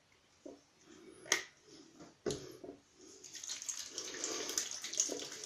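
Tap water running into a sink, starting about three seconds in, after two sharp knocks.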